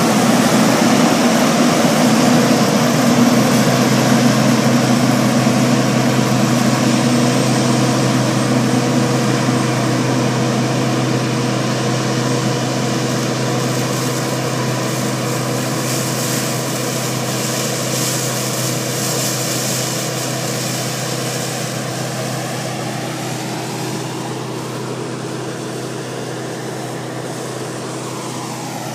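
Laverda AL Quattro Techno combine harvester running at a steady pitch while harvesting barley, its engine and threshing mechanism humming; the sound fades gradually as the machine moves away.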